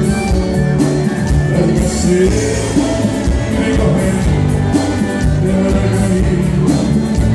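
Live band music with a male singer singing into a microphone, loud and continuous.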